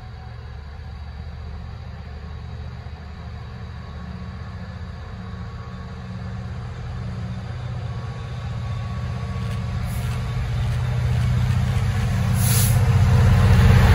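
Class 66 diesel freight locomotive approaching with a container train. Its two-stroke V12 engine's low rumble grows steadily louder as it nears, with a brief high hiss near the end.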